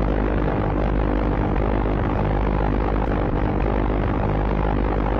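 Propeller aircraft engine running steadily in flight, a continuous drone.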